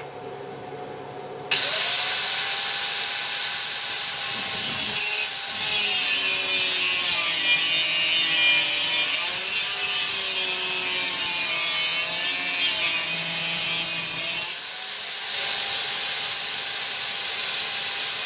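Power tool cutting through steel, starting suddenly about a second and a half in, its motor pitch wavering up and down as it bites into the cut, with a brief easing near the end.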